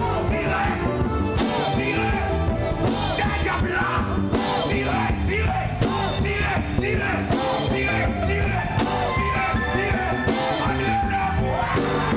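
A live church praise band playing at full volume with a steady beat, with voices singing over it.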